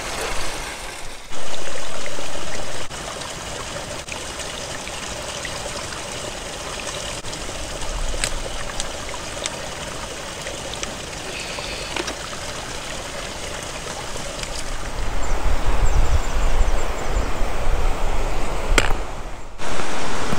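Spring water trickling and running over rocks in a steady stream. A brief loud burst comes about a second in, a few sharp clicks are scattered through it, and a louder low rumble rises near the end.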